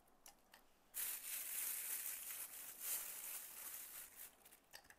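Plastic bag crinkling and rustling for about three and a half seconds, starting about a second in, after a few faint ticks.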